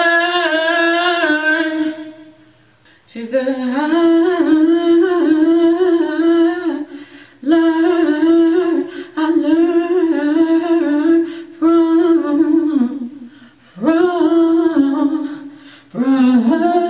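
A woman humming melismatic vocal runs into a handheld microphone during vocal practice. The voice comes in a string of short phrases of wavering, stepping pitch, with a clear break about two seconds in and brief breaks between the later phrases.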